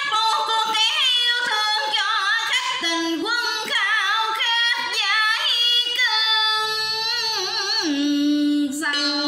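A singer singing a slow Vietnamese ballad in karaoke, holding notes with vibrato over a quiet backing track. The voice ends about 8 seconds in, leaving a held instrumental note.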